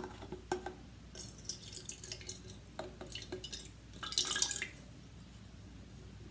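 Water poured from a plastic bottle into an aluminium beer can, trickling and splashing unevenly with small clicks, with a louder burst a little after four seconds in.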